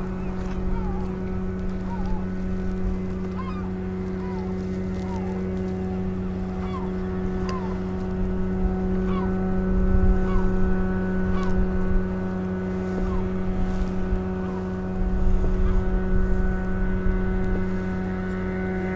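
A steady mechanical hum made of several constant tones. Over it, birds give short falling calls every second or two, and a low rumble swells about halfway through and again later.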